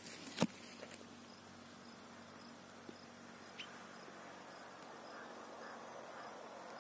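Faint outdoor ambience with an insect chirping in soft, high, regular pulses, about two a second. A single sharp knock about half a second in is the loudest sound.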